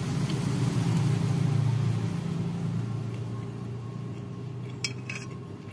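A motor vehicle engine running close by, a steady low hum that fades away over the last few seconds. A couple of light clicks near the end, a spoon against a plate.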